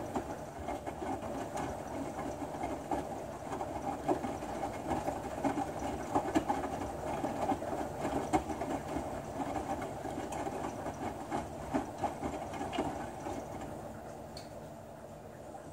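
Hotpoint Ultima S-Line washing machine drum tumbling wet laundry, with water sloshing and the clothes dropping and slapping in irregular knocks. The tumbling eases off for a moment near the end before starting up again, as the drum pauses between turns in the wash.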